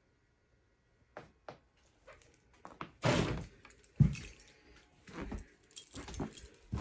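Rummaging through stored things: a string of knocks and clatters, with a sharp thunk about four seconds in.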